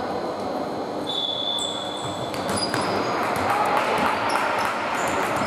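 Echoing sports-hall noise during a basketball game: a steady background murmur with short high sneaker squeaks on the hardwood court.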